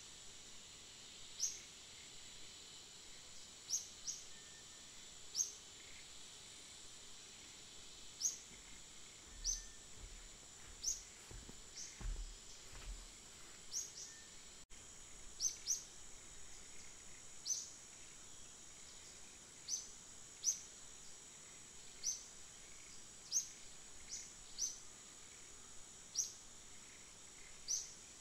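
Forest ambience: a steady high insect drone with a short, high, rising chirp repeating about once every second or so. A few soft low rumbles come near the middle.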